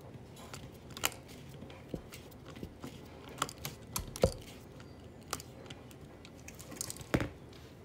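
Irregular small clicks and taps as a screwdriver works the terminal screws of an electrical receptacle and the metal device is handled.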